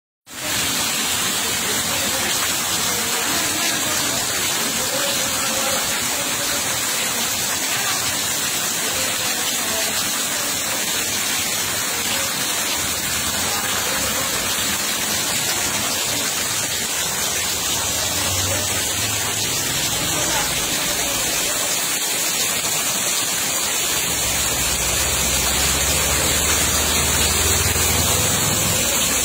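Fast-flowing muddy water rushing past a concrete edge, a steady, even rush.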